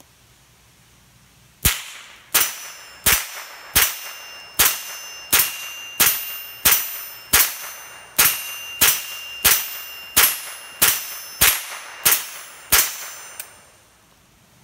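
Glenfield Model 60 semi-automatic .22 LR rifle fired 17 times at an even pace, about one shot every 0.7 s, emptying its 17-round tube magazine. Each sharp crack is followed by a short metallic ring.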